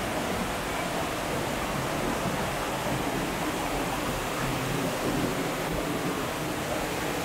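Shallow mountain stream rushing steadily over rock ledges and small cascades.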